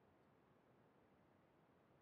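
Near silence: faint steady hiss of the recording's noise floor.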